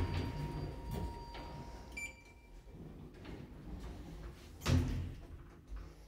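Hiss i Skåne (ThyssenKrupp) traction elevator car after a floor call: its sliding doors shutting, with a thud at the start, a steady tone for about two seconds, a short high beep about two seconds in, and a second, louder thud near the end.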